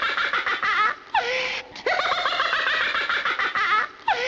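High-pitched giggling laughter in quick, rapid pulses. The same stretch of laughter repeats about every three seconds, each round ending in a short rising sound held briefly.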